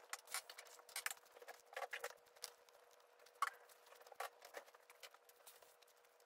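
Sulcata tortoise making faint, irregular clicks and taps, about one or two a second and uneven in loudness.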